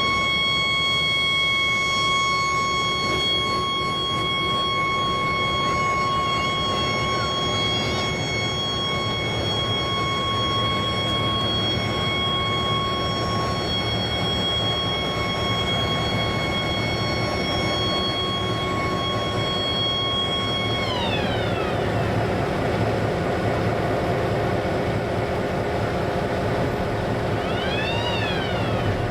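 A train running past with a steady rumble and a high whine of several pitches. About 21 seconds in, the whine drops in pitch all at once as the train passes.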